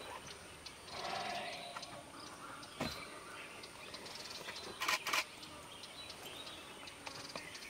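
Quiet outdoor background with faint bird chirps and a few sharp clicks, two of them close together about five seconds in.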